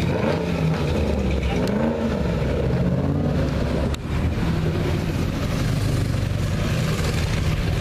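Ford Mustang Shelby GT500's supercharged V8 revved in a few rising and falling blips as the car drives slowly past. After that it runs steadily, swelling again near the end.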